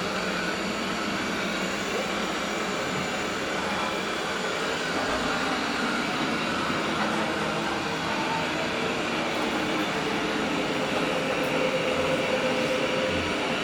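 Robot vacuum cleaner running, a steady, even mechanical noise with no change in pitch or level.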